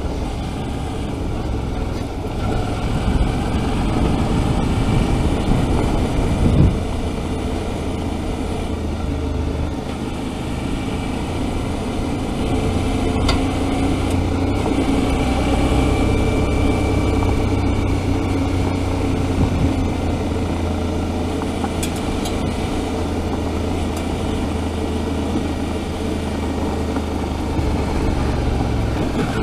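Suzuki V-Strom 650's V-twin engine running steadily as the bike rides along a gravel track, with an even rushing noise over it. A single thump about seven seconds in.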